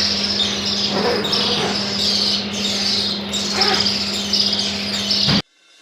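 A crowd of newly hatched Australorp and Rhode Island Red chicks peeping, many short falling chirps overlapping, over a steady low hum. The sound cuts off suddenly near the end.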